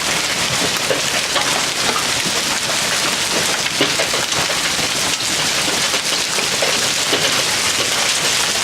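Heavy hail falling hard, a dense steady clatter of many small stones striking the ground and the surfaces around.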